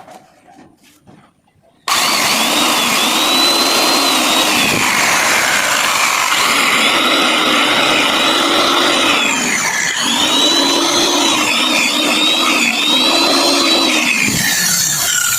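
Electric wood-cutting saw switched on about two seconds in and running loudly, with a high whine whose pitch sags and recovers several times.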